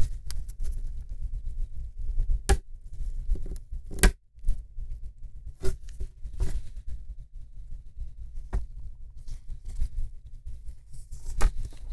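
Plastic laptop case being handled on a table, with the lid closed and reopened: about half a dozen sharp clicks and knocks at irregular intervals over a steady low hum.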